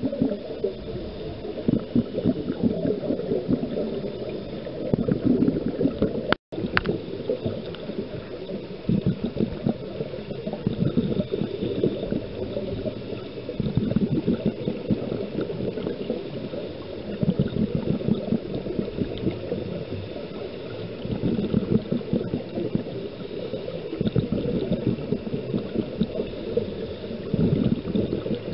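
Scuba diver's exhaled bubbles gurgling out of the regulator in repeated bursts every three to four seconds, heard muffled underwater. There is a momentary break about six seconds in.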